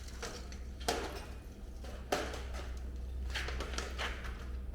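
A couple of sharp metallic knocks and lighter scraping from hand tools on metal as a 14 mm wrench is put to work, over a steady low hum.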